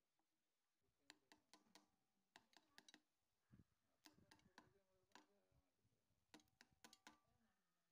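Faint, irregular metallic clicks and clinks from a T-handle socket wrench working the bolts of the oil pump cover on a Honda Activa's aluminium crankcase. About twenty small clicks come in short clusters, some with a brief ring.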